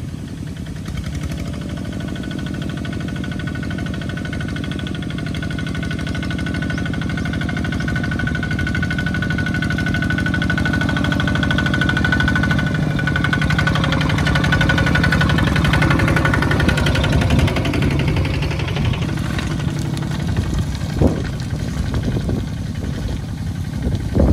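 Single-cylinder diesel engine of a two-wheel walking tractor chugging under load as it hauls a trailer of rice sacks through deep mud, growing louder as it draws near and passes. A thin steady whine runs alongside for the first half.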